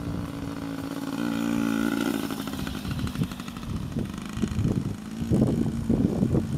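Small child-sized dirt bike engine running, its pitch rising as the throttle opens about a second in, then holding steady. A few irregular low thumps near the end.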